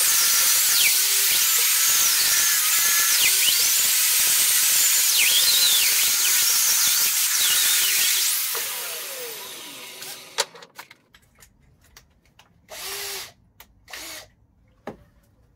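Electric angle grinder with a wire brush, pressed against a metal bench vise: a loud rasping hiss whose pitch wavers under the load. About eight seconds in it is switched off and winds down with a falling whine, followed by a few light clicks and knocks as it is set down.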